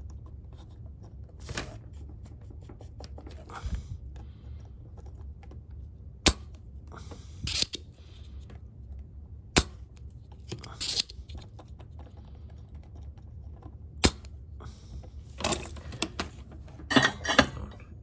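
Three sharp snaps a few seconds apart, among short scraping and rustling handling noises: a desoldering pump being fired while solder is sucked off a circuit board. A low hum runs underneath.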